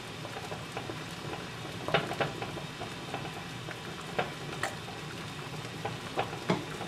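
Water at a rolling boil in a saucepan double boiler, bubbling steadily, with a few light clinks of a metal measuring spoon against a glass measuring cup, the loudest about two seconds in and near the end.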